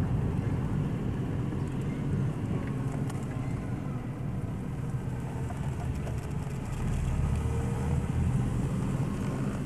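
A car driving slowly, with a steady low rumble of engine and road noise.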